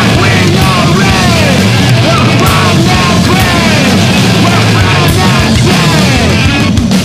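Loud punk-rooted noise-rock/screamo band recording, dense and distorted, with repeated falling pitch swoops over a heavy low end. Near the end it breaks into a run of sharp drum hits.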